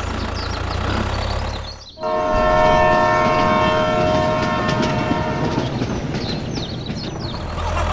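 A low hum cuts off about two seconds in. Then a horn sounds one steady, held chord-like note for about three and a half seconds over a rumbling background and fades out.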